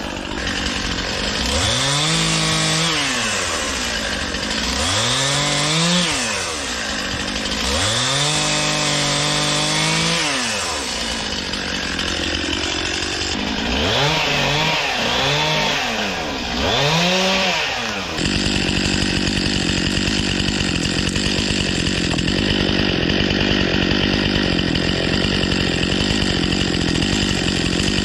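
Stihl MS 261 C two-stroke chainsaw throttled up and back down six times, each rev rising in pitch and falling away, as when cutting branches. After about two-thirds of the way in it runs at a steady speed.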